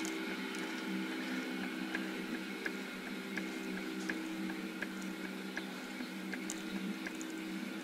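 Metal lathe running: a steady machine hum with a light tick about every two-thirds of a second.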